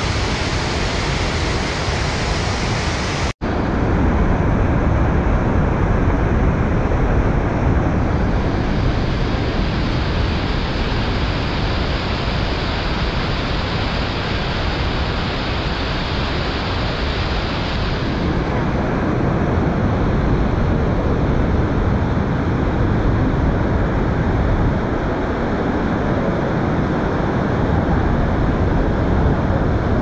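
A large waterfall in full flow, white water pouring over rock ledges, makes a loud, steady rushing noise. The sound cuts out for an instant a few seconds in.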